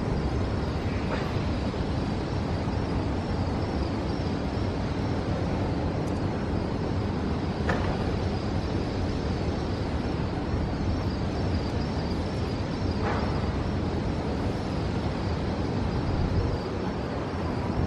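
Steady low rumble of outdoor background noise, with a few faint short sounds about a second in, near the middle and about two thirds through.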